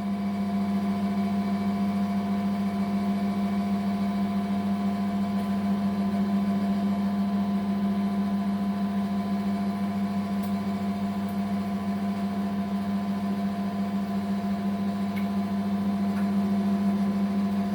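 Countertop steam oven running with a steady hum.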